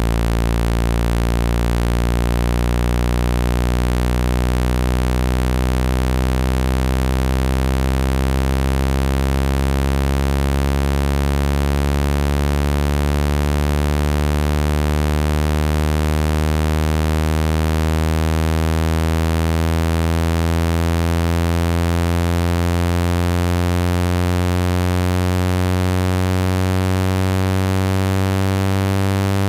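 Synthetic low buzzing tone, rich in harmonics, gliding slowly and steadily upward in pitch: a speaker-cleaning tone meant to shake water out of a phone's speaker.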